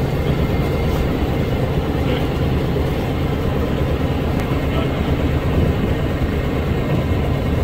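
Steady low rumble of a small wooden tour boat under way, even in level throughout with no breaks.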